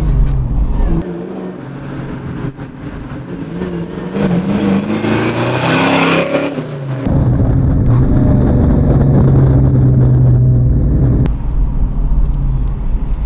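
1969 Camaro's big-block V8 with a muscle-car exhaust note. It is heard first from outside as the car pulls away and accelerates, the note rising and getting louder. From about seven seconds in it is heard from inside the cabin, running at a steady cruise.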